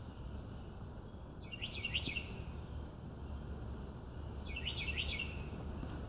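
A songbird singing two short phrases of quick, high notes, a few seconds apart, over a steady low background rumble.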